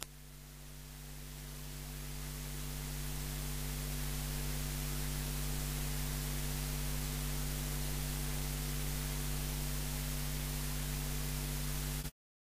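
Steady hiss with a low electrical mains hum from the recording. It grows louder over the first few seconds, holds steady, and cuts off abruptly near the end.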